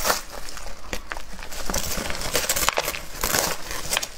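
Plastic film crinkling and crackling as it is peeled away from a frozen layered dessert during unmoulding, with irregular sharp crackles.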